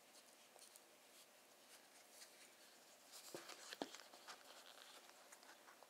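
Near silence with faint handling noise: a few small clicks and scratchy taps, from about three seconds in, of hands working a phone in a Snugg PU-leather flip case.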